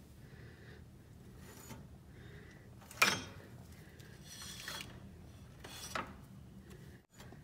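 Workshop handling sounds from metal parts and hand tools: a sharp metallic click about three seconds in, a smaller one near six seconds, and faint rubbing and light knocks between them.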